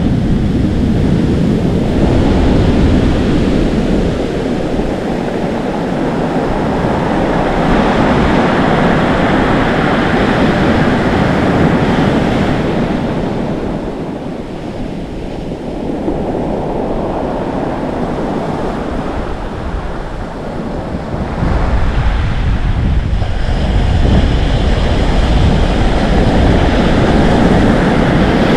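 Atlantic Ocean waves breaking and foaming on the shore, swelling and ebbing in waves, with wind buffeting the microphone.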